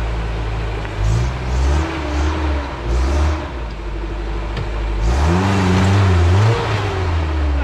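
Lifted 4x4 pickup's engine revving in short surges as it climbs a steep, muddy trail. About five seconds in it comes a longer, louder rev under heavy load.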